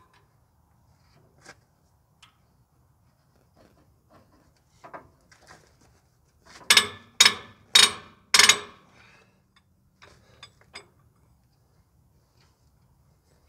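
Socket ratchet working a rusty fuel-tank mounting bolt on an old excavator frame, with light metal clicks and knocks. About halfway through come four loud ratcheting strokes in quick succession.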